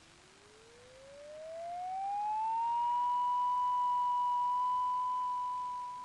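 A single pure electronic tone gliding steadily up in pitch over about three seconds, then held on one note. It swells in as it rises and begins to fade near the end.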